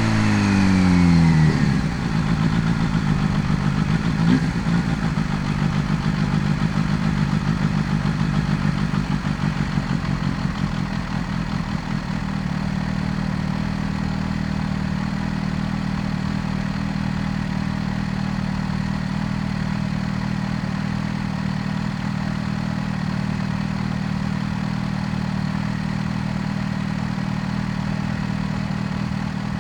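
Kawasaki Z H2's supercharged 998 cc inline-four engine, its revs falling over the first couple of seconds as the bike slows. It runs at low revs, then from about a third of the way in settles into a steady idle.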